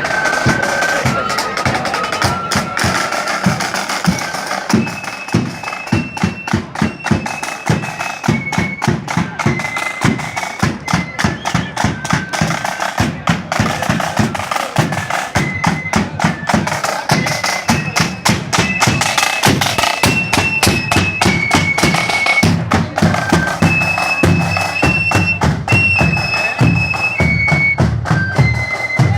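Marching flute band playing a tune: the flutes carry a high melody in held notes over a steady, dense beat of side drums and bass drum.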